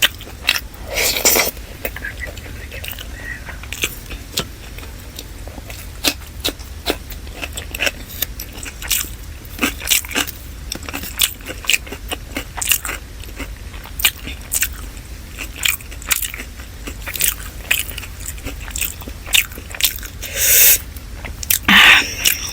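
Close-miked chewing and biting while eating chicken dum biryani: a steady run of short sharp clicks and smacks, with a longer noisy sound about a second in and again near the end.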